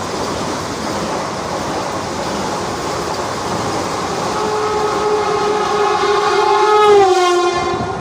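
Train passing at speed with a steady rushing, rattling noise; about halfway in its horn sounds one long blast that drops in pitch shortly before it stops near the end.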